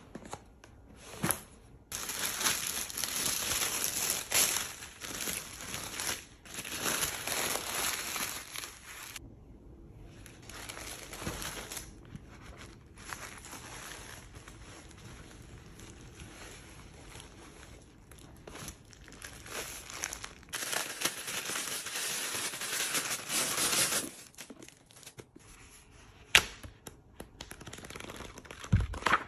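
Tissue paper and packaging crinkling and rustling as a box is unpacked by hand, in long stretches with quieter pauses between. A couple of sharp taps come near the end.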